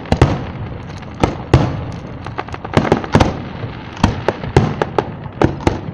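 Aerial fireworks shells bursting in quick, irregular succession: about fifteen sharp bangs in six seconds, some close together in pairs and clusters, over a continuous low rumble.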